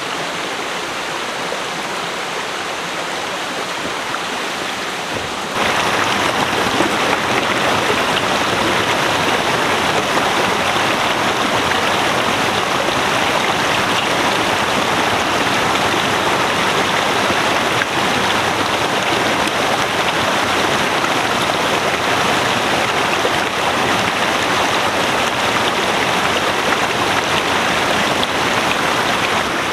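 Steady rushing of a shallow mountain stream running over rocks. It is fainter for the first few seconds, then louder and closer from about five and a half seconds in.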